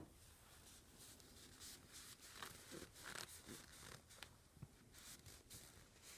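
Near silence, with faint scattered rustling and scratching of handling and a couple of small ticks a little past the middle.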